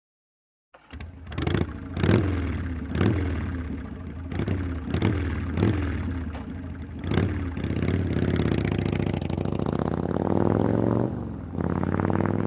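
Motorcycle engine revved in a string of quick throttle blips, roughly one a second, then held at a steady raised rev that dips briefly near the end.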